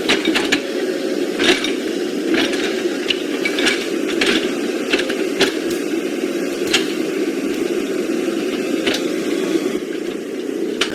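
Small electric motors and plastic gearboxes of radio-controlled toy trucks and excavator whirring steadily, with irregular clicks and rattles throughout.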